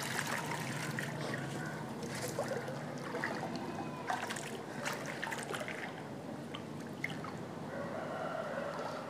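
Shallow pond water splashing and trickling as a person wades through it and sweeps a long-handled hand net. At the start there are small splashes from a netful of fish lifted at the surface.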